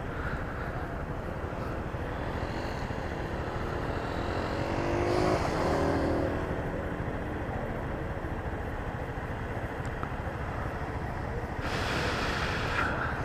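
Helmet-camera audio from a moving Honda CG 150 Fan motorcycle: wind rushing over the microphone, with the single-cylinder engine underneath. About five seconds in, an engine note rises and then falls in pitch, and a short hiss comes near the end.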